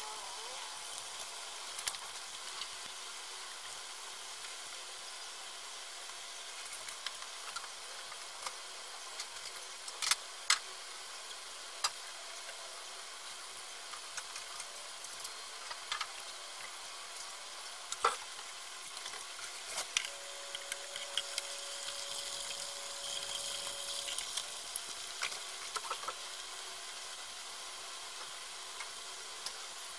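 Pork meatballs shallow-frying in hot oil in a pan: steady sizzling with scattered sharp pops of spattering oil, the loudest about ten seconds in and again near the middle.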